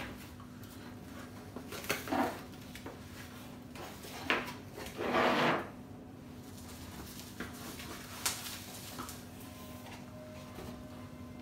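Cardboard box being opened by hand and a bubble-wrapped package lifted out: a few short knocks and scuffs of the cardboard flaps, and one longer scraping rustle about five seconds in, the loudest sound. A faint steady hum runs underneath.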